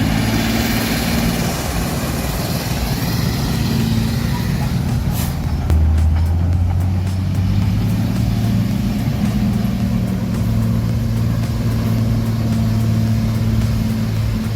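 Heavy truck engine running steadily under load, its low drone deepening about six seconds in.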